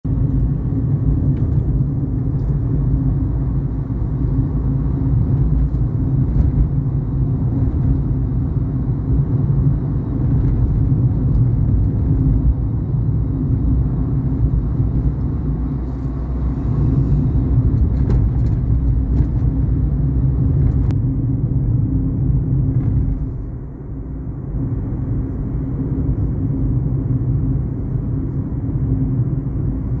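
A car driving steadily on a paved road: a continuous low engine and tyre rumble with a steady hum. The rumble eases briefly about three-quarters of the way through.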